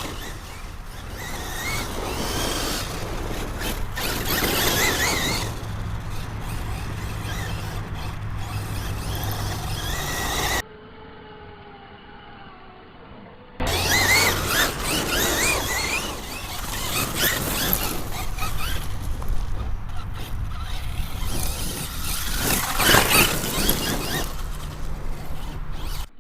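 Electric RC truck (Axial Yeti XL on 6S) running hard over dirt: a high motor and drivetrain whine that rises and falls with the throttle, over tyre and gravel noise. It cuts off abruptly about ten seconds in, is quiet for about three seconds, then starts again just as suddenly.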